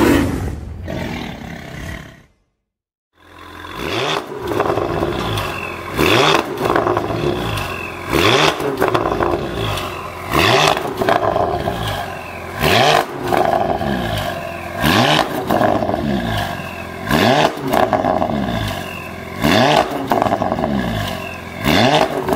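A short intro sound effect cuts off about two seconds in. After a moment of silence, a Porsche Panamera 4 E-Hybrid's twin-turbo V6 through a Fi Exhaust valvetronic cat-back runs at idle and is blipped in quick revs about every two seconds, each rev rising sharply and falling straight back, about eight times.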